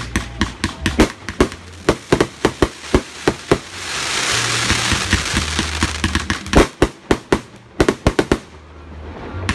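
Monkeys Go Ape 100-shot consumer firework cake firing: a rapid string of sharp bangs, several a second, from shots leaving the tubes and shells bursting overhead, with a few seconds of dense hiss in the middle.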